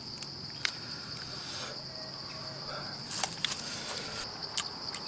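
A steady, high-pitched insect chorus drones throughout, with a few sharp clicks and taps over it.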